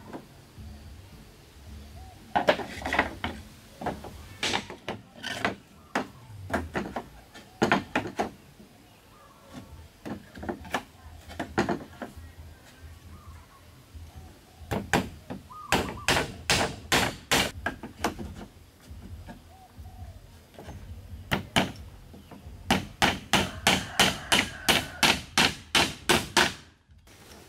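Hammer driving nails into wooden roof boards, in several runs of quick, sharp strikes. The longest run comes near the end, at about four or five blows a second.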